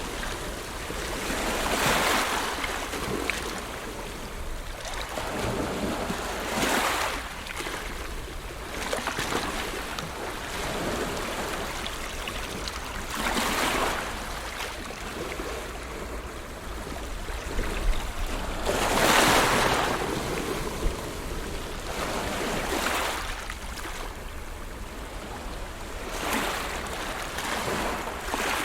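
Ocean waves breaking and washing in, a surge of surf every four to six seconds, the biggest about two-thirds of the way through. Wind rumbles low on the microphone.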